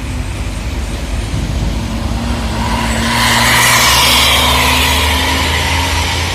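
A heavy road vehicle's engine running as it passes close by. It grows louder to a peak about three to five seconds in, with a rush of tyre and engine noise, then eases off.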